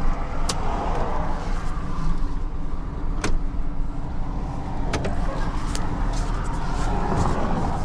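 Tow truck driving, its engine and road noise making a steady low rumble inside the cab, with a few sharp clicks.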